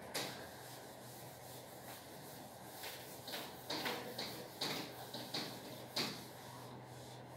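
Whiteboard eraser wiping marker off a whiteboard: a brief stroke at the start, then a quick run of short rubbing strokes about two a second, the last and loudest about six seconds in.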